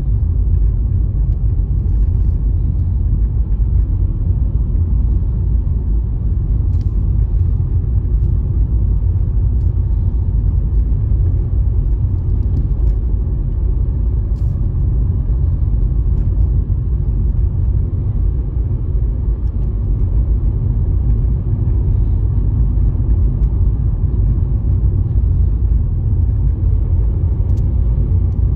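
Car being driven along a road: a steady low rumble of engine and tyres, with a few faint clicks.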